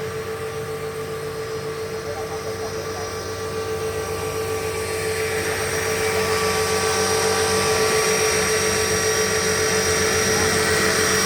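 Electric Tarot 450 Pro RC helicopter running: a high brushless-motor whine over a steady rotor hum with a fast, even flutter, growing louder about four seconds in.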